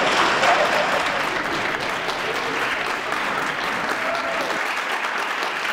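Applause from a small seated audience, a steady clapping that eases off slightly toward the end, with a few faint voices over it.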